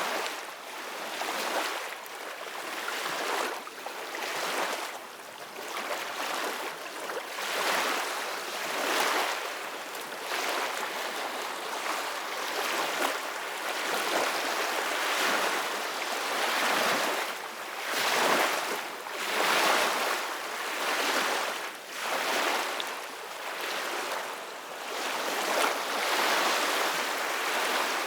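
Gentle ocean waves washing ashore, a continuous hiss of surf that swells and eases every second or two.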